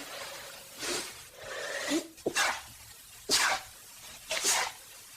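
A person with a stuffy nose sneezing repeatedly in a fit: four sneezes about a second apart.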